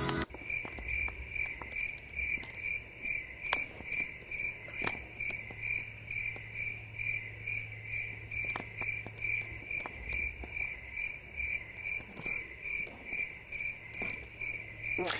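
Steady cricket-like chirping: short high chirps, about three a second, evenly spaced throughout.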